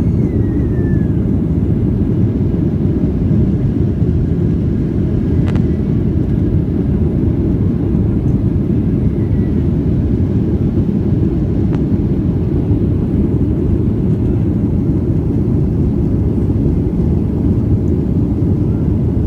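Steady drone of an airliner's engines and airflow heard inside the passenger cabin in flight, an even low rumble with no change in level. Two faint clicks about five and twelve seconds in.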